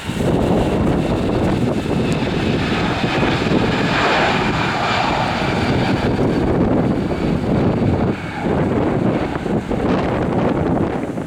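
Jet engines of an easyJet Airbus A320 at takeoff thrust: a loud, steady roar with a thin whine in it, fullest about four seconds in.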